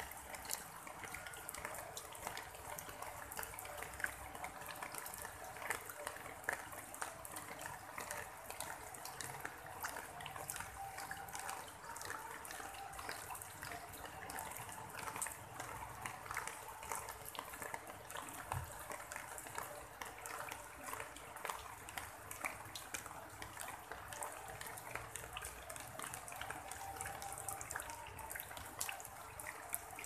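Steady rain: a dense patter of falling drops with a sound of running water underneath, even throughout.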